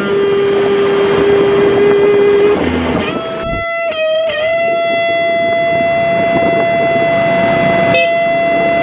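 Distorted electric guitar holding two long sustained notes: a lower one that breaks off, then a higher one that bends in pitch at its start and rings on. Road traffic noise runs underneath.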